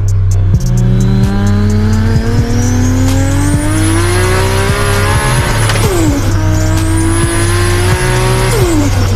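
Toyota Supra's turbocharged 2JZ inline-six accelerating hard under load. The revs climb steadily for about five seconds, fall sharply at an upshift, climb again, and drop off near the end. A high turbo whistle rises with the revs.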